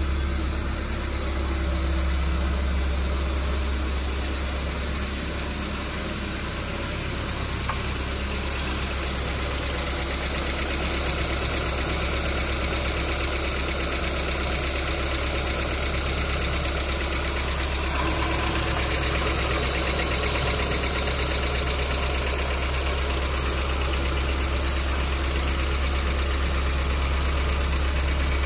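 1997 Mazda MX-5 Miata's 1.8-litre four-cylinder engine idling steadily.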